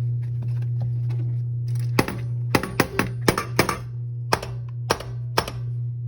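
Bally Xenon pinball machine in play: a steady low hum under a run of sharp clacks from about two seconds in, about nine in three and a half seconds, as the flippers and solenoids fire and the ball strikes.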